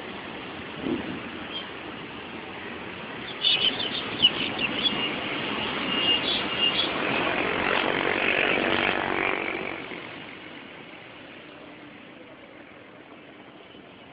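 Road traffic with auto-rickshaws and motorcycles running past. A cluster of short high beeps comes a few seconds in, then a vehicle passes close and fades away about ten seconds in.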